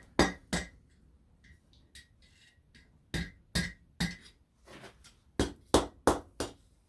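Hand hammer striking hot steel bent over the horn of an anvil, forging a bend: a couple of blows, a pause with a few light taps, then a quick run of about eight blows, each with a short metallic ring.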